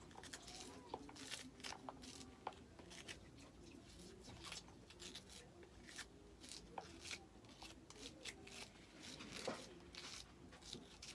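Near silence: room tone with faint, irregularly spaced small clicks and taps.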